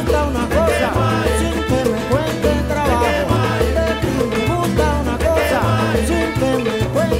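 Background music in a Latin, salsa-like style, with a bass line stepping between notes under a gliding lead melody.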